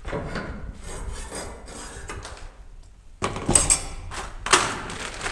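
Handling noise, then several sharp knocks and clanks of hard objects being picked up and set down in the second half, the loudest about three and a half and four and a half seconds in.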